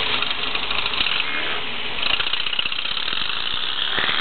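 1992 Westfield SE's engine running while the car stands still, a loud, fast rattling beat from the exhaust.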